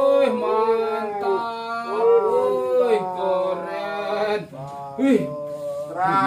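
A man's voice singing long, drawn-out, wavering notes, with short breaks between phrases.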